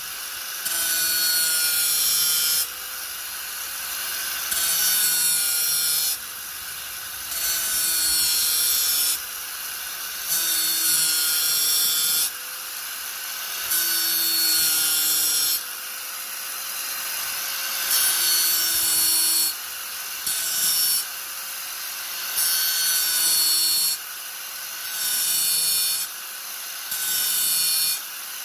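Angle grinder running steadily, with its disc pressed into the material in about ten repeated passes, each adding a louder, hissing grinding noise for a second or two over the motor's whine.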